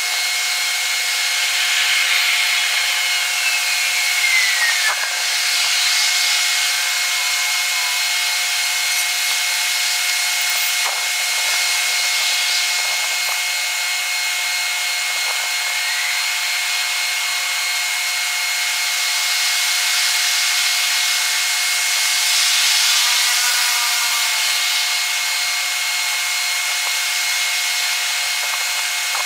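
Railway and road ambience around a station, played back six times fast: a steady high-pitched rushing hiss with nothing low in it, swelling twice as trains or traffic pass, with a falling sliding tone early and a rising one about halfway through.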